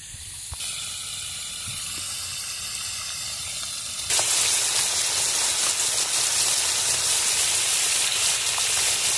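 Jaraqui fish frying in hot oil in a plow-disc pan: a steady hissing sizzle that suddenly gets louder and fuller about four seconds in.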